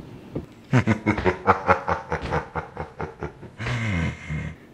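A man laughing: a fast run of short 'ha' pulses for about three seconds, ending in one long drawn-out note near the end.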